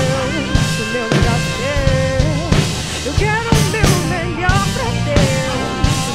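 Rock band playing a worship song: drum kit and bass under a bending, wavering lead melody line, with no lyrics sung.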